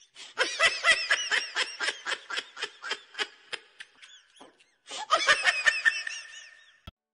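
High-pitched giggling laughter, a comic sound effect, in a quick run of short laughs. It breaks off about four and a half seconds in, starts again half a second later, and cuts off abruptly near the end.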